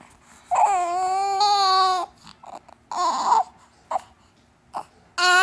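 Newborn baby crying: a long wail about half a second in, a shorter, rougher cry around three seconds, and another wail starting near the end.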